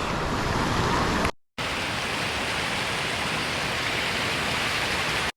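Steady rush of creek water flowing and splashing. It cuts out for a moment about a second and a half in, then carries on unchanged.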